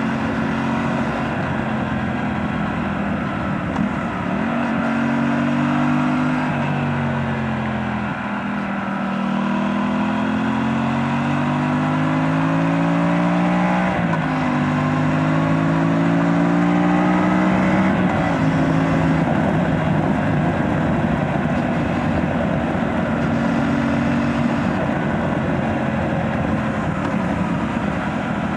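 Aprilia RS 457's parallel-twin engine running through its stock exhaust, revs climbing and falling back several times as the throttle is opened and closed through corners, with a sharp drop in revs about halfway through.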